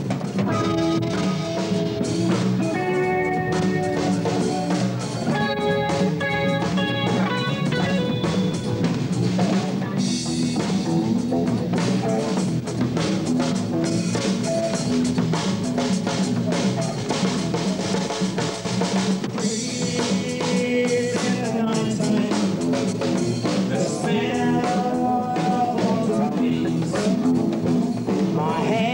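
Rock band playing a song: a drum kit beat under bass and electric guitar lines.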